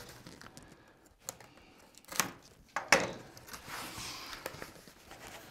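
A cardboard shipping box is handled and opened on a wooden tabletop: a few sharp knocks and taps, the loudest about three seconds in, then a couple of seconds of cardboard rustling and scraping.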